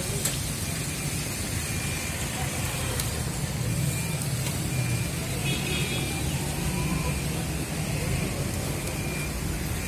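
Chapli kababs frying in a wide pan of hot fat: a steady sizzle over a constant low rumble.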